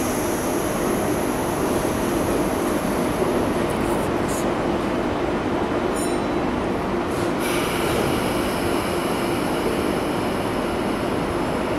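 Sydney Trains K-set double-deck electric train standing at the platform with a steady hum, its doors closing with short clicks in the first half. A high whine comes in about seven and a half seconds in as the train gets ready to depart.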